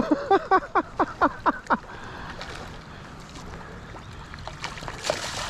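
A man laughing, a run of about eight short 'ha's, each falling in pitch, over the first two seconds. Then a quieter steady hiss of wind and water, with a brief splash near the end as the hooked northern pike thrashes at the surface by the bank.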